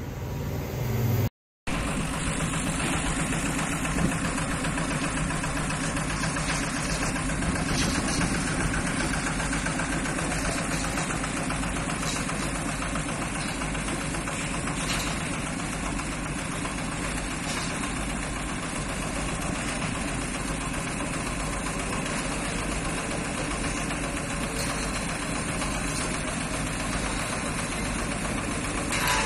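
Diesel engine of a crawler crane running steadily, with a few faint clicks over it.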